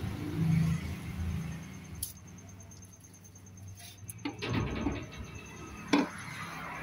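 A new oil filter cartridge being handled and fitted into its canister on a combine harvester's diesel engine: a few light metal clicks and knocks with handling noise. A low rumble runs through the first second or so.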